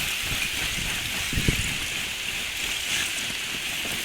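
Shoving lake ice grinding and crackling steadily as wind-driven sheets push ashore, with one sharper knock about a second and a half in.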